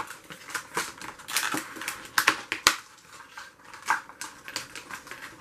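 Stiff clear plastic blister packaging handled by hand, crackling and snapping irregularly, with a few sharper cracks a couple of seconds in.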